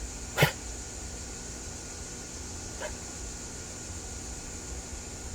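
Dog coughing: one sharp, loud cough about half a second in and a fainter one near three seconds. The owner suspects an allergy flare-up, or a blade of grass caught in the nose or throat.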